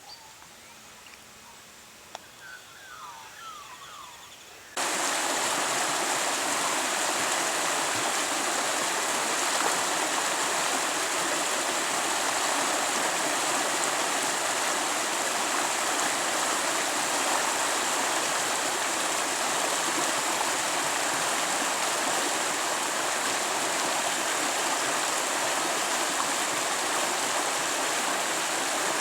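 Rushing stream water, a steady loud rush that comes in abruptly about five seconds in. Before it, a quiet stretch with a few faint chirps.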